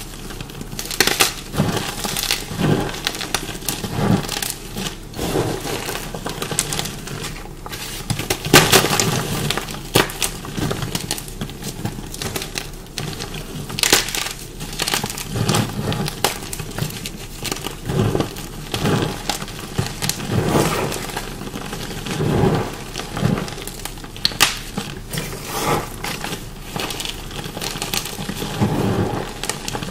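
Dyed chalk blocks being bitten and chewed: irregular sharp crunches and crackles, with duller chewing thuds between them. The dye has made this chalk crunchy.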